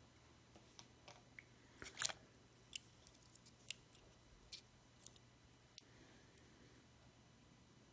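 About a dozen small sharp clicks and taps of a laptop's copper CPU heatsink and its metal bracket being handled and set back down over the freshly pasted processor. The loudest, a quick cluster of clicks, comes about two seconds in.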